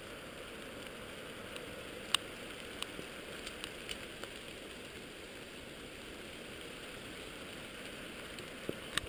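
Light rain falling on the leaves and brush, a steady soft hiss, with scattered sharp ticks, most of them between two and four seconds in and again near the end.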